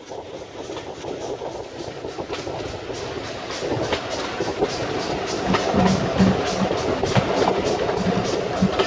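GWR 0-6-0 steam locomotive 3205 working hard at the head of the train, heard from an open carriage window: an even, quick beat over the rumble of the carriage wheels on the rails. It grows louder through the first half.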